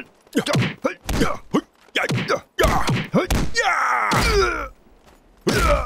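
A person groaning and crying out in pain: short, falling cries one after another about every half second, then one longer wavering cry about four seconds in, and another short cry near the end.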